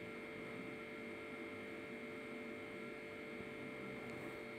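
A steady electrical mains hum with a faint hiss underneath, unchanging throughout.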